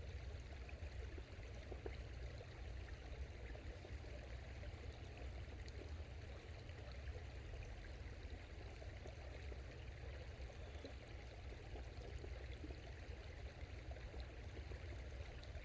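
Small forest creek running, a faint, steady rush of water, with a low, even rumble underneath.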